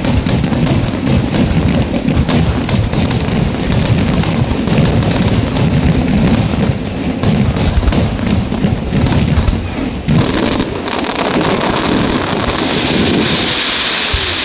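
Aerial fireworks going off in a dense barrage: overlapping booms and crackling bursts with a continuous rumble. Near the end a hissing crackle swells up.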